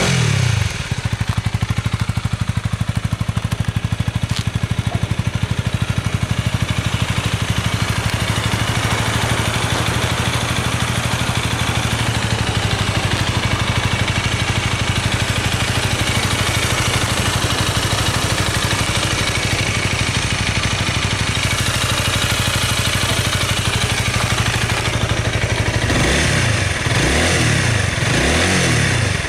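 Honda Rebel 250's single-cylinder engine idling steadily through its stock exhaust. A rev dies away right at the start, and a few quick throttle blips come near the end.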